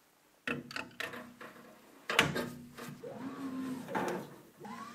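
Metal knocks and clicks as a laser head is set onto its magnetic quick-connect mount on the gantry, with the loudest clunk about two seconds in. A short wavering tone that glides up and down follows near the end.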